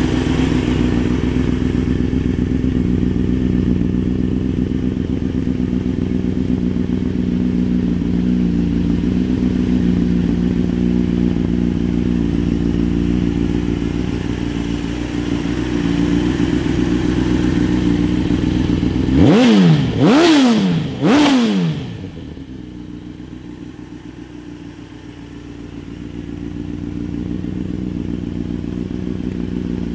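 2006 Honda CBR1000RR's inline-four engine idling steadily, then revved three times in quick succession about two-thirds of the way through, each rev rising and falling in pitch, before it drops back to a quieter idle.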